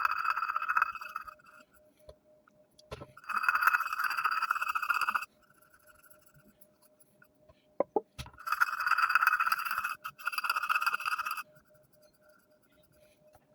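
Fingernail scraping sticky label residue, softened with lighter fluid, off a Zippo lighter's metal case, in four separate strokes of one to two seconds each.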